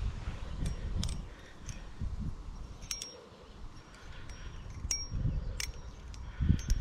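Hazetac balisong (butterfly knife) being flipped: its metal handles click shut and against the blade with short, bright metallic rings, about a dozen irregular clicks over a low rumble.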